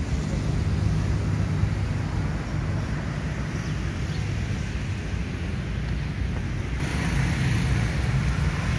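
Steady low outdoor rumble of wind on the microphone and road traffic, with no clear single event; the hiss turns brighter about seven seconds in.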